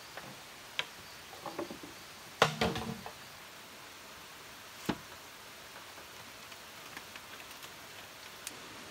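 Bamboo poles knocking and clattering as they are handled: a single knock, a loud cluster of knocks with brief ringing about two and a half seconds in, another knock near five seconds, then a few light ticks. A steady hiss lies underneath.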